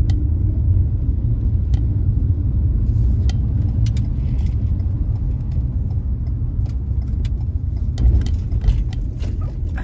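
Car cabin on the move: a steady low rumble of road and engine noise, with scattered small rattles and clicks, and two louder jolts about eight seconds in as the car goes over a bumpy road.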